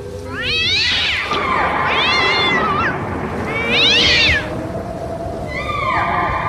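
Cat yowling: three meows, each rising then falling in pitch and about a second long, followed by a longer drawn-out cry near the end, over a low steady tone.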